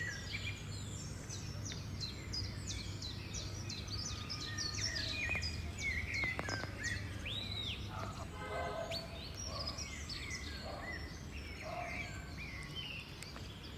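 Several small birds chirping and singing together, with quick high chirps and short sweeps overlapping without a break. A steady low rumble of background noise runs underneath.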